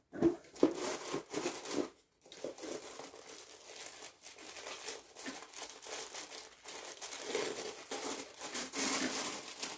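Black tissue paper crinkling and rustling as it is pulled open and unfolded inside a cardboard box, getting louder toward the end.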